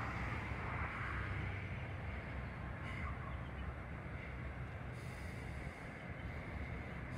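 Steady low rumble of wind on the microphone mixed with distant engine noise.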